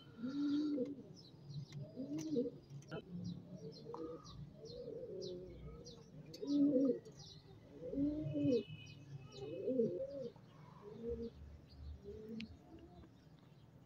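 Caged domestic pigeons cooing: a run of low, rolling coos about once a second that die away near the end. Faint high chirps are heard behind them.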